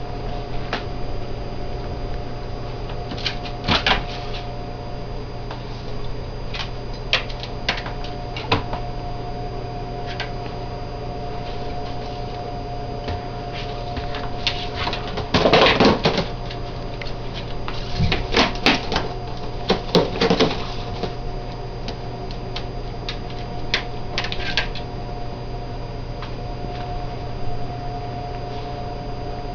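Scattered knocks and clatters over a steady electrical hum, with a louder burst of clattering about halfway through and a few more shortly after.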